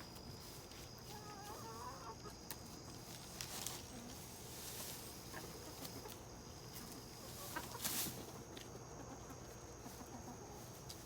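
Chickens clucking softly as they feed on freshly pulled grass, with a couple of brief rustling noises about a third of the way in and again near two-thirds.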